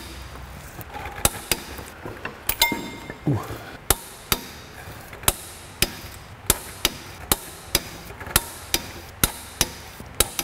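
Sharp metallic clicks at an uneven pace, about two a second, from hand tools working on the flywheel bolts, with a short metallic ring about two and a half seconds in.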